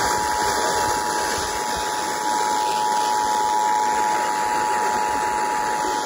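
Emergency Alert System two-tone attention signal (853 and 960 Hz sounding together) playing steadily from a Sangean FM radio's speaker over a background hiss. It is the alert tone that announces an emergency message, here a severe thunderstorm warning.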